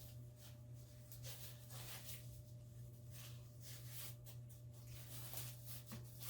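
Faint rustling and light handling noises, soft scattered scrapes and touches, over a steady low hum.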